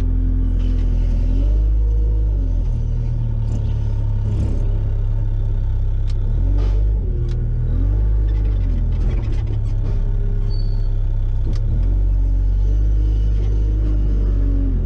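Compact wheel loader's engine running, heard from inside the cab, its pitch rising and falling as the machine is driven and the bale clamp is worked. A few short sharp clicks are heard along the way.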